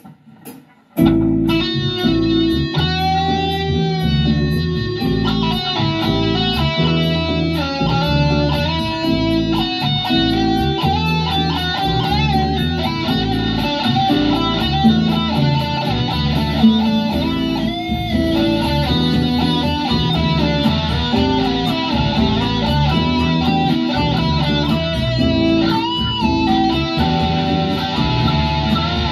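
Les Paul-style electric guitar playing a melodic lead with bent and wavering held notes over a full backing track with a steady beat; the music starts about a second in.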